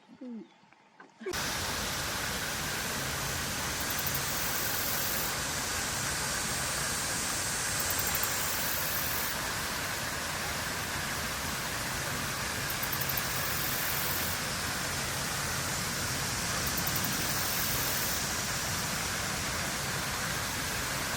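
A steady, even rushing hiss that cuts in abruptly a little over a second in and holds a constant level.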